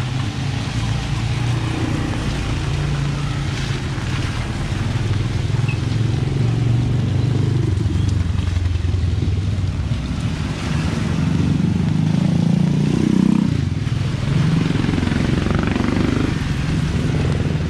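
Street traffic: motor vehicle engines running and passing close by, with the engine pitch rising and falling around the middle and again near the end.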